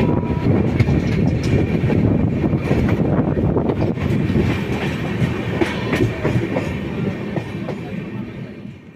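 Express train with LHB coaches running at speed: a steady rumble with repeated wheel clicks over the rail joints. It fades away near the end.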